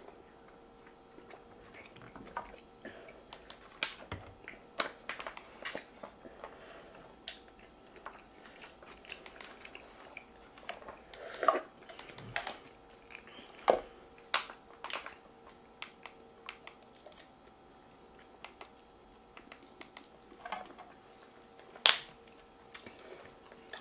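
Eating sounds: chewing, with scattered sharp clicks and scrapes of plastic forks in foil takeout containers, over a faint steady hum.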